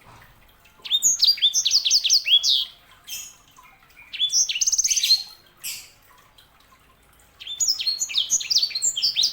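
Sanger songbird singing: three bursts of fast, high, repeated trilled notes with short pauses and a few single calls between.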